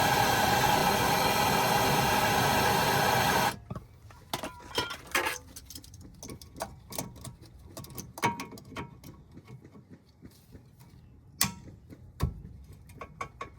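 Handheld gas torch burning steadily while heating a stuck nut to loosen it. It shuts off about three and a half seconds in, followed by scattered light metallic clicks and knocks.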